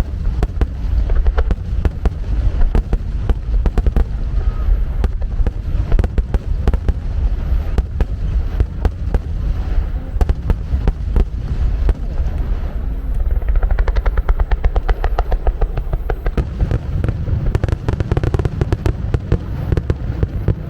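Fireworks grand finale: a dense, continuous barrage of aerial shell bursts, rapid booms overlapping one another with no gaps between them.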